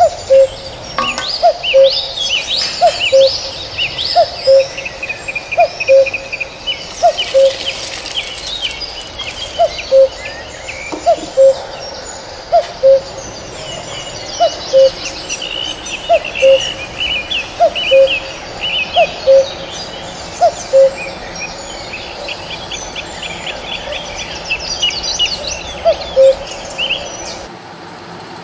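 Birdsong: a low two-note call, a short rising note then a lower one, repeated about every one and a half seconds, over a chorus of quick high chirps from other birds. A thin steady high whine runs underneath, and everything stops about a second before the end.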